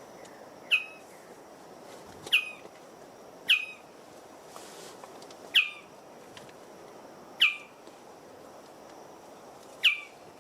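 A bird-of-paradise giving a sharp, loud call six times, each a quick downward-sweeping note, repeated every second or two over a faint steady hiss.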